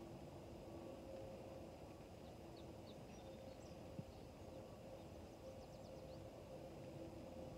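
Faint outdoor ambience: a few short, distant bird chirps over a steady faint hum, with a single soft click about four seconds in.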